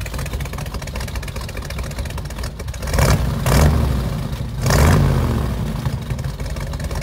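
1968 Ford F100 pickup engine idling shortly after a cold start, its exhaust pulsing rapidly. It swells louder twice, about three seconds in and again about five seconds in, as the engine is briefly revved.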